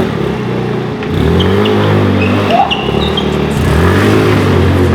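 Sportbike engine revving, its pitch climbing and dropping back a couple of times.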